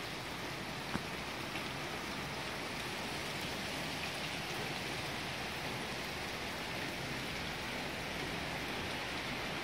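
Steady rain falling, an even hiss, with a single sharp tick about a second in.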